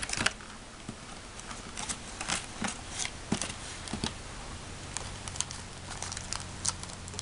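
Irregular light clicks and crinkles from handling small plastic candy-kit parts: a little plastic spoon in the plastic tray and a plastic pastry bag.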